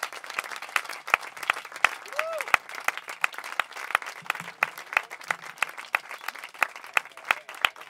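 Audience applauding: a steady run of many hand claps, with a short voice calling out about two seconds in.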